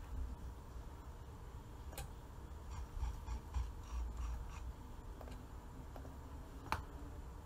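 Faint low room rumble with two sharp clicks, one about two seconds in and one near the end, and a short run of light ticks between them.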